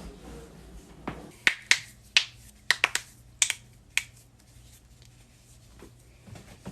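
Joints cracking: about seven sharp pops in quick succession from about a second in to four seconds in, then a quiet stretch with a few faint ticks near the end.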